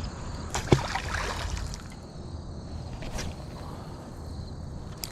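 Water splashing at the river's edge: a knock and a short splash about half a second in, and another brief splash around three seconds, over faint steady insect chirping.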